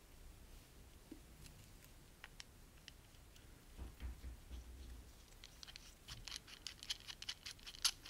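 Faint small clicks and scratches of fingers working thin wires into a plastic handlebar switch housing, with a few soft bumps midway and a quick run of sharper ticks near the end.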